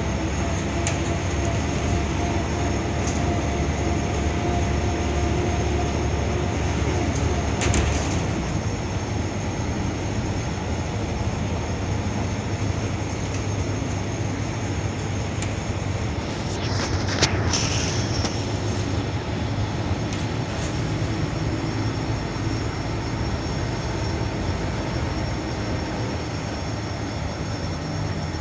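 Interior noise of a Volvo B12BLEA articulated bus under way: its diesel engine running steadily beneath road and tyre noise, with a humming engine note that fades about eight seconds in and short rattles around eight and seventeen seconds in.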